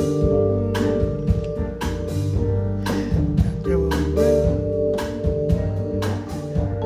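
Jazz band playing: a drum kit with frequent cymbal and drum strikes over a bass line and held chords.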